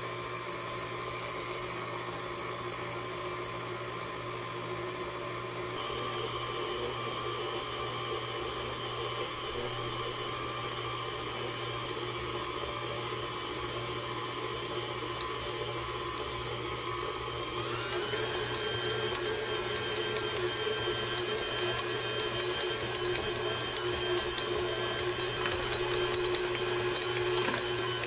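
KitchenAid Classic Plus tilt-head stand mixer kneading pizza dough with its dough hook at low speed (speed 2): a steady electric motor and gear whine. About two-thirds of the way through, the pitch rises a little and it gets slightly louder.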